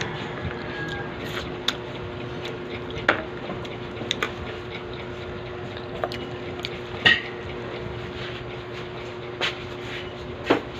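Spoon and cutlery clinking now and then against bowls and plates, with wet squishy sounds of soup and food being eaten, over a steady low hum.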